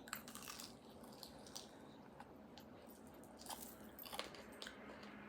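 Faint close-up eating sounds from chewing bone marrow: scattered small wet mouth clicks and ticks.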